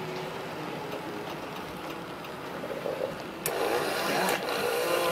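Small electric motor and gearing of a model diesel locomotive whirring as it runs along the track, wheels rattling on the rails. It gets clearly louder about three and a half seconds in as the locomotive passes close by.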